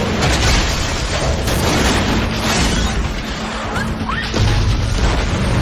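Action-film soundtrack: score music over a loud, dense mix of crashes and explosions as a vehicle smashes through shacks.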